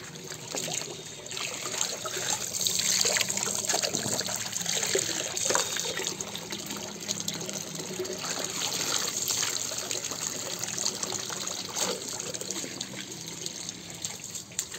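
Water running and trickling steadily, with a few brief splashes, as muddy toy vehicles are washed.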